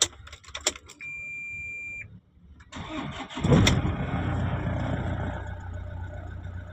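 Toyota Innova engine starting: a one-second beep, then a brief crank, then the engine catches with a loud burst about three and a half seconds in and settles into a steady idle.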